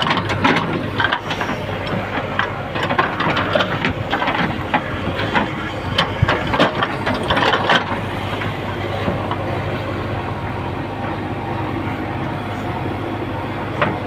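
JCB 3DX backhoe loader's diesel engine running steadily while its backhoe bucket digs and scrapes through soil around a tree stump, with frequent short knocks and clatters of earth for the first half or so, then a steadier engine sound.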